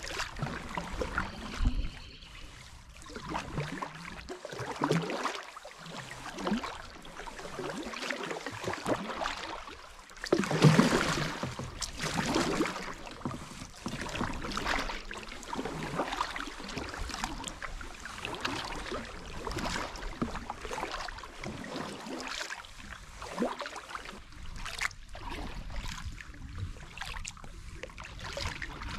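Double-bladed kayak paddle dipping into river water in steady strokes, splashing and dripping, with water running along the hull. One louder splash comes about a third of the way through.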